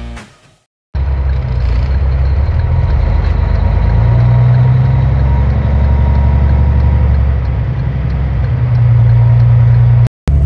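Semi truck's diesel engine pulling a loaded trailer away, a steady low drone that gets louder about four seconds in and again near the end. The last notes of background music fade out at the very start.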